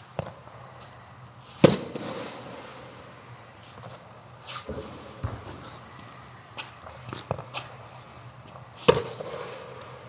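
Tennis balls struck by rackets, two loud sharp hits about seven seconds apart, each with a short echo of the indoor court. Fainter knocks of balls bouncing fall between them.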